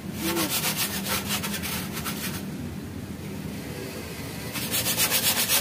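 Hand wet-sanding of a car's burnt, rusty steel front frame with sandpaper and soapy water: quick back-and-forth rubbing strokes, about five a second, that pause for about two seconds in the middle and resume louder near the end.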